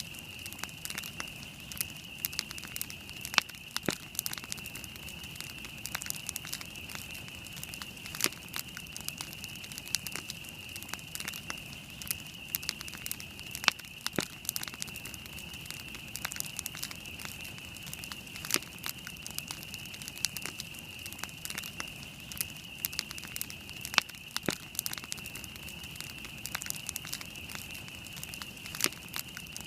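Wood campfire burning and crackling, with irregular sharp pops throughout, a few louder snaps among them, over a steady high-pitched hiss.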